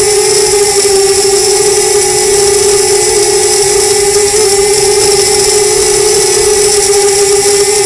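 Small FPV quadcopter's brushless motors and propellers whining steadily, picked up by the onboard camera's microphone, the pitch wavering slightly with throttle.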